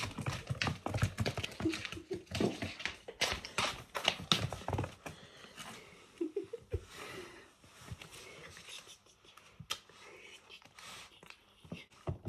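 Slipper footsteps and a golden retriever puppy's paws tapping and scrabbling on a laminate floor, busiest in the first five seconds, then scattered taps as the puppy is played with.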